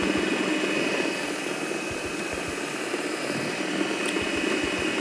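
Food processor motor running steadily, blending chickpeas and toasted sesame into a fine hummus paste: a constant whir with a thin high whine over it.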